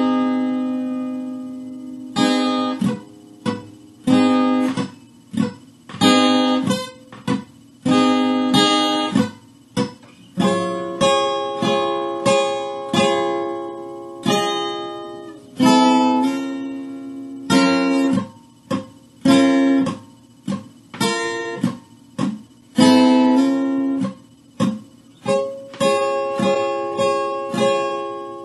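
Acoustic guitar with a capo on the 4th fret, strummed slowly through a chord progression: ringing chords alternating with short, sharp muted strokes in a steady rhythm.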